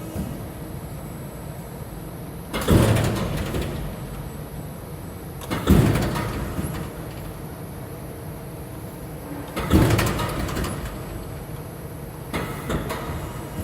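SAFAN CNCL K CNC press brake cycling: four strokes about three to four seconds apart, each a sudden clunk that fades over about a second, over a steady low machine hum.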